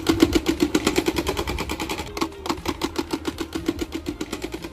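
A thin plastic card flapping against a bicycle's spokes inside a plastic-bottle mock silencer, making a rapid, even rattle of about ten clicks a second like a small motorbike. It grows quieter as the bike rides away.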